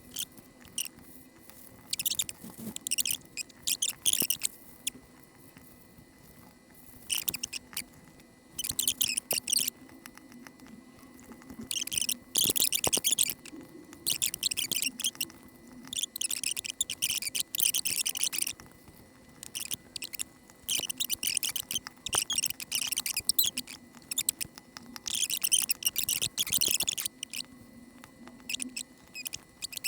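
Clusters of quick, small plastic clicks and crackles, a second or two at a time with short pauses between them, from a mechanical keyboard being put together by hand.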